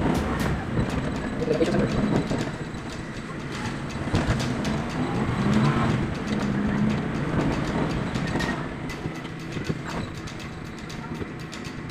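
Car travelling along a road, heard from inside: a steady engine and road rumble with frequent small knocks and rattles from bumps.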